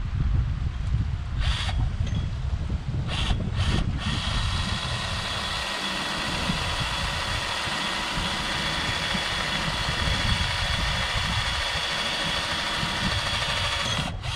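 Cordless drill given a few short trigger pulls, then held running steadily for about ten seconds before stopping suddenly.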